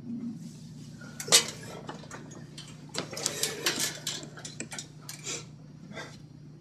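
Cups and dishes clinking and knocking on a tabletop as they are handled and set down. A sharp knock comes about a second and a half in, then a quick run of clinks a little later.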